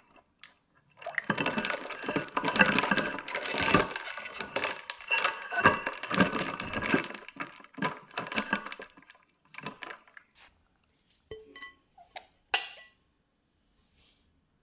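Silicone spatula stirring custard in a glass bowl set in an ice-water bath: several seconds of swishing and scraping with small clinks of glass, then a few light taps and one sharp glass clink near the end.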